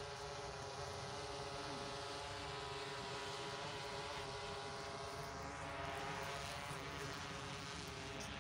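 A steady motor hum that holds one pitch throughout.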